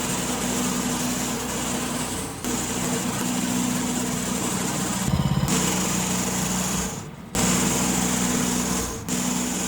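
Small gasoline engine of a Woodland Mills portable bandsaw sawmill running steadily while the blade cuts. The run breaks off abruptly and restarts several times.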